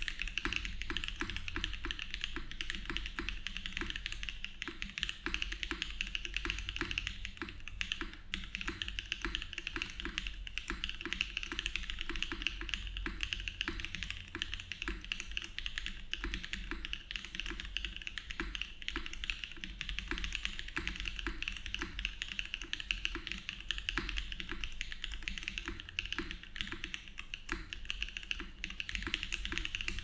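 Continuous fast typing on a Mode Tempo mechanical keyboard with SWK Catmint switches, an FR4 plate, GMK Lavender keycaps and no foam inside: a dense, steady stream of keystrokes.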